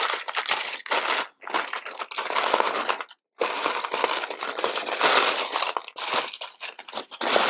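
Hands rummaging through a pile of loose LEGO bricks, small plastic pieces clattering and rattling against each other while searching for one part. It breaks off completely for a moment a little after three seconds in.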